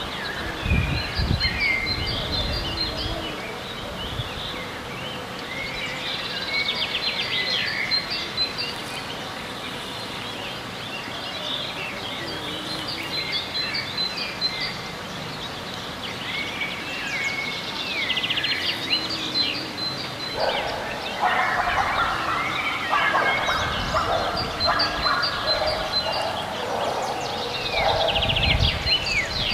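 Several songbirds singing outdoors, with repeated short chirps and trills. About two-thirds through, a lower, rougher run of calls joins in for several seconds.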